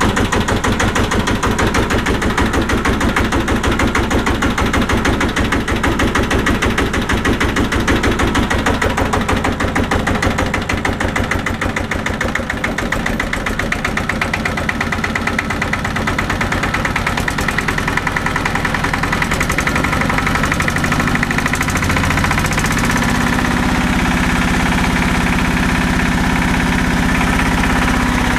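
Changfa S195M single-cylinder diesel engine running shortly after a −17 °C cold start, its firing strokes a rapid, even beat. Over the last few seconds the note grows smoother and steadier.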